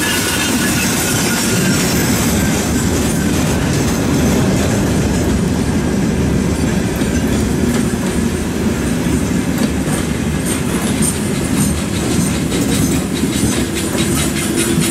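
Freight wagons rolling past at close range: the loud, steady rumble of steel wheels on the rails, with repeated clacks as the wheelsets cross rail joints, more of them in the second half.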